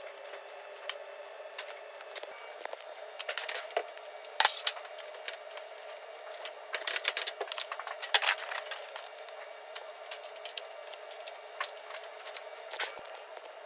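Scattered clicks, taps and short rustles of objects being handled and set in place, with a busier flurry about four seconds in and again around seven to eight seconds.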